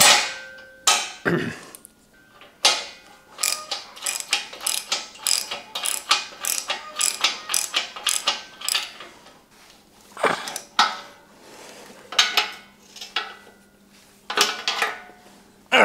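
Socket ratchet clicking in quick runs as steel bolts on a shop crane's mast and base are run in and tightened, with a few sharp metal knocks between the runs.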